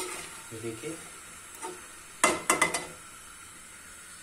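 Metal spatula scraping and knocking against a metal cooking pan while stirring thick okra and potato curry, with a burst of quick scrapes and taps about two seconds in, over a faint steady sizzle.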